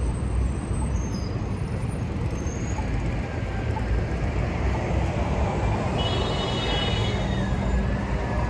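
Steady city traffic noise, with a brief high-pitched whine for about a second and a half starting about six seconds in.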